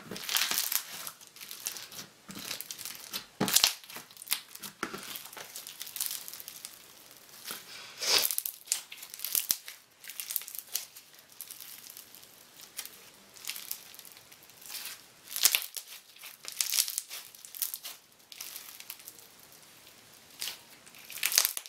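Foam-bead slime (floam) squeezed, stretched and pressed by hand: the beads crackle and pop in irregular bunches, some louder squeezes every few seconds.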